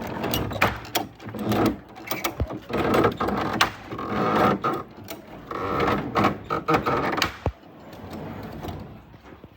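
Irregular knocks and clatter, many sharp hits in quick succession over a dense background of noise, dying down near the end.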